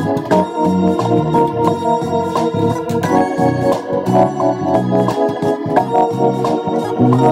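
Electric bass guitar playing a simple groove over a backing track of sustained organ chords with a steady beat.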